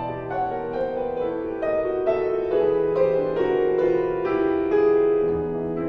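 Steinway grand piano playing a solo passage of a classical art-song accompaniment, a flowing succession of notes in the middle register.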